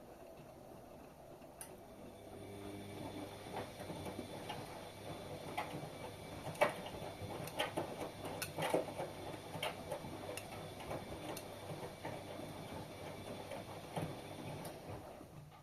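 Washing machine running a wash: a low motor hum as the drum turns, with irregular clicks and knocks of the load tumbling against the drum.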